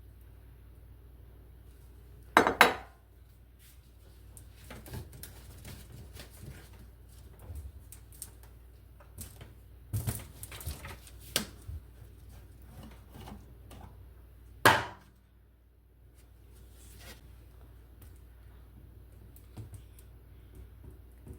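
Kitchen dishes and utensils clinking and knocking, with loud clatters about two and a half seconds in and again near fifteen seconds, a run of knocks around ten to eleven seconds, and smaller clicks between.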